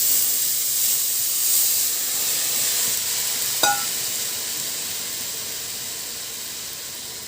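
Garlic, ginger and green chillies frying in ghee in a kadhai with the drumstick pulp going in: a steady sizzle that slowly dies down. One short clink of a utensil about three and a half seconds in.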